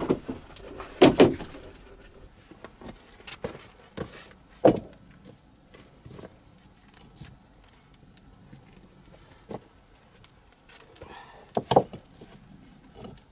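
Stones knocking and clunking as they are set by hand onto a dry stone wall: a handful of sharp knocks several seconds apart, the loudest about a second in and a cluster near the end.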